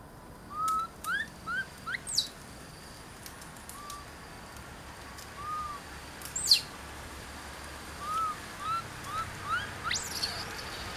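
Baby macaques giving a series of short, high chirping coo calls, some arching and some rising in pitch, in clusters at the start and in the second half. A few sharp, very high descending squeaks stand out about two seconds in, at six and a half seconds (the loudest) and near the end.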